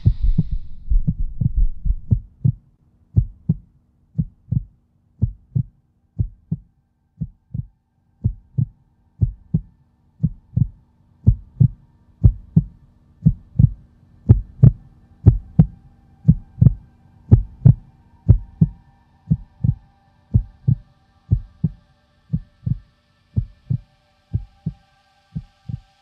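Closing soundtrack built on a slow heartbeat-like pulse: deep thumps in pairs, about one pair a second, over a low held tone. Higher held tones join about two-thirds of the way through.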